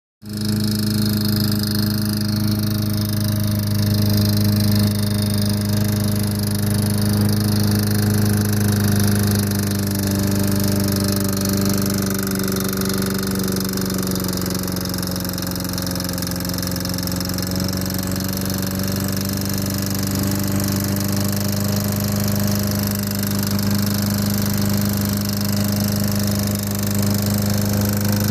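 Self-propelled lawnmower's small engine running steadily with a bad knock, an engine on its way to failing; the owner had left the oil cap loose.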